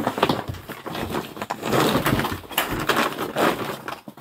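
Plastic bags rustling and crinkling steadily as shoes are pulled out of them and handled.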